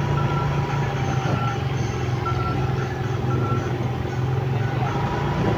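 Motorcycle engine running steadily at low speed amid street traffic noise, with a faint short high beep repeating about once a second.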